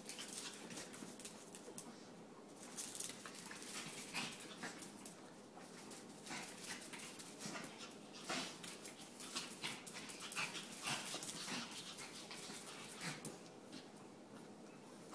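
Shih Tzu puppies play-fighting: small dog noises mixed with many short clicks and scuffles throughout.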